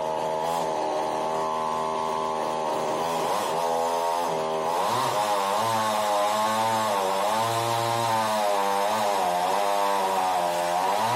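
PIT GCS52D 52 cc two-stroke chainsaw running at high revs. It holds steady for the first few seconds; from about five seconds in, its pitch dips and recovers again and again as the engine loads up while the chain cuts.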